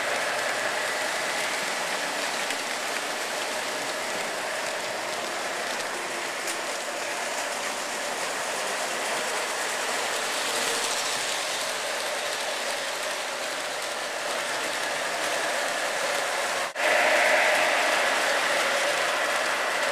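O-gauge model diesel locomotive running on three-rail track, a steady busy rattle of wheels clicking over the track with the motor's hum. It drops out for an instant about seventeen seconds in, then comes back a little louder.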